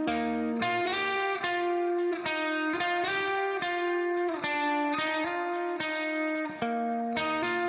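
Background music: a plucked guitar picking out a calm melody in an even rhythm, a new note about every half second.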